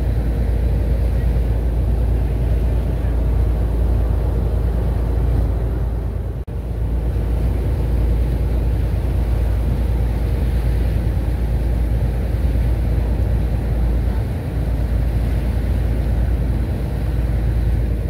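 Steady rumble of a ferry under way: its engine running, with water rushing past the hull and wind on the microphone. The sound cuts out for an instant about six seconds in.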